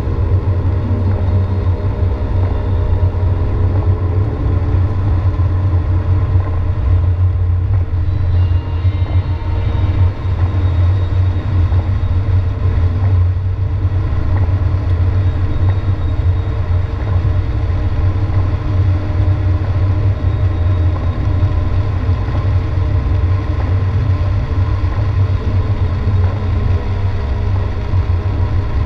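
Car driving on a wet highway, heard from inside the cabin: a steady, loud low rumble of road and engine noise.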